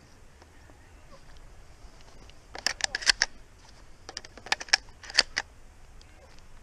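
Close handling noise from a shotgun and body-worn camera: two short runs of sharp clicks and knocks, the second beginning about a second and a half after the first.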